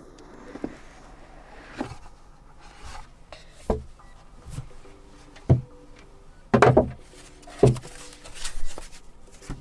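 Cardboard keyboard box being handled and opened: rubbing and sliding of the packaging, with several soft knocks and taps scattered through.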